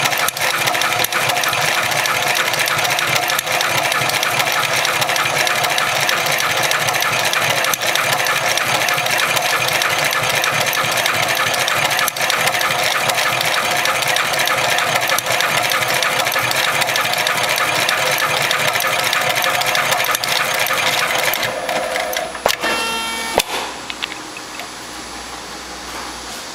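Cowboy 71008R automatic heavy-duty sewing machine stitching through thick twisted rope, running with a rapid, even clatter of the needle. About 21 seconds in it stops with a couple of clunks, leaving a quieter steady hum.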